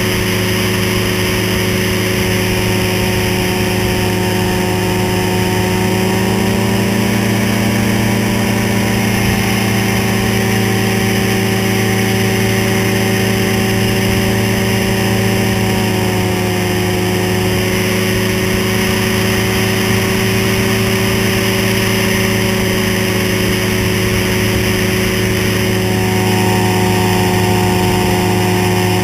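Ultralight trike's engine and propeller running steadily in flight, the engine note wavering slightly in pitch a couple of times, with a steady rush of wind noise over it.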